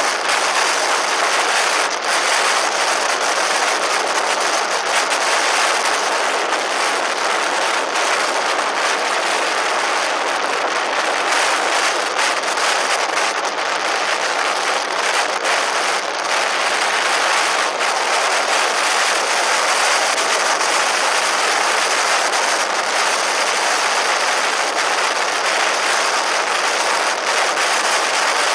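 Steady rush of wind and road noise picked up by a camera mounted on a motorcycle riding at speed.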